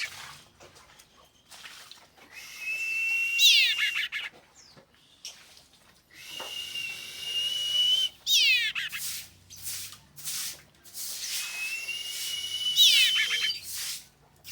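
Common iora (cipoh) calling: a long, level whistle that rises slightly, ending in a quick run of sharp downward-sweeping notes, given three times with pauses between.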